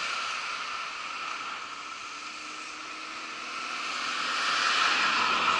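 Wind rushing over a bike-mounted camera's microphone while riding, with a car coming up and passing; the noise swells to its loudest about five seconds in.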